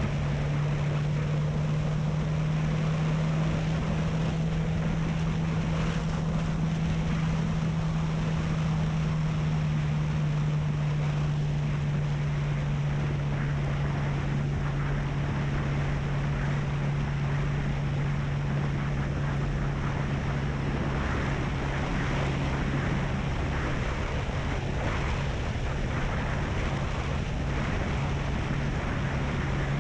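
Honda CB300F's single-cylinder engine running at a steady cruise, a constant engine note under the rush of wind and road noise on the microphone.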